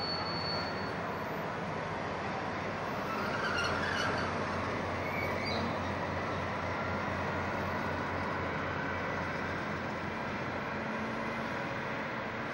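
Freight train passing at walking-to-moderate speed behind a diesel locomotive, the covered wagons rolling by on the rails with a steady, low pulsing rumble.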